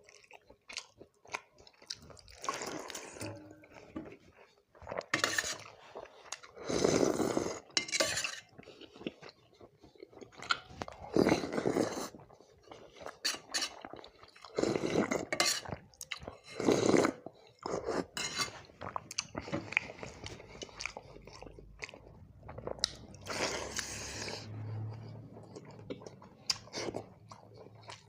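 Close-miked eating: a person chewing and crunching fried fish with rice, with wet mouth sounds and many small clicks, in a string of louder bites spread through the stretch.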